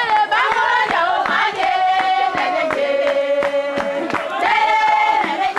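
A crowd of men singing a hauling chant together in long held notes while they drag a canoe, with short sharp knocks or claps throughout.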